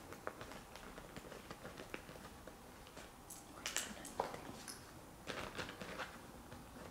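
Faint handling noises: scattered small clicks and ticks with a couple of brief rustles and scuffs, as gear is taken out of a backpack and set down.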